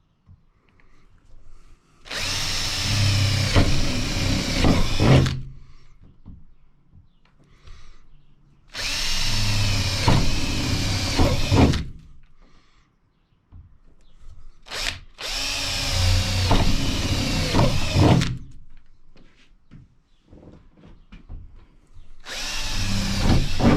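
Power drill boring pilot holes through the van's sheet-metal sliding door, in four separate runs of about three seconds each, with short pauses between. The motor's whine wavers in pitch as the bit bites into the metal. The last run starts near the end.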